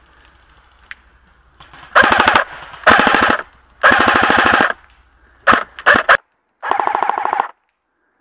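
Airsoft rifle firing on full auto in rapid bursts. There are four bursts of half a second to a second each, with a couple of short bursts between them.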